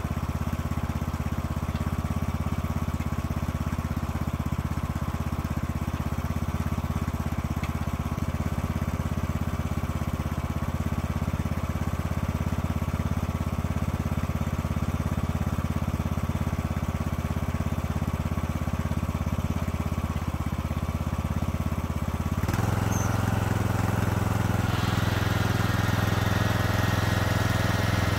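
A small engine running steadily at a constant speed. About 22 seconds in, its note steps up and gets a little louder.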